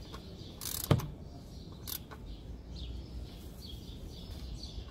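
Torque wrench on a socket extension gives a sharp metallic click about a second in as a CVT oil pan bolt reaches its torque spec, with a fainter click about a second later.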